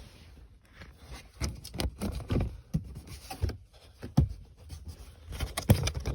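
Plastic lower center-console trim pieces of a 2015 Chevy Sonic being handled and pushed into place: irregular knocks, clicks and rubbing, with the sharpest knocks about four seconds in and near the end.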